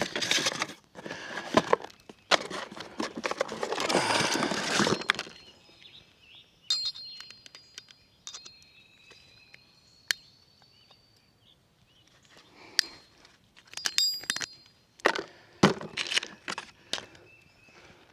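Rustling and scraping handling noise, then scattered sharp metallic clinks with a short ring and a few knocks, as metal parts are handled.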